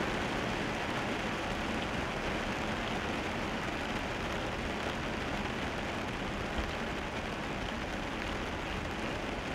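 Steady hiss of a car driving on a wet road in the rain, heard from inside the cabin: tyres on wet asphalt with rain noise.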